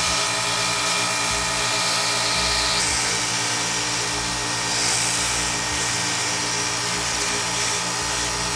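A Dayton 2-inch belt sander running with a steady motor hum, with a gritty sanding hiss that swells twice as a small workpiece is pressed against the belt to shape its outside edge.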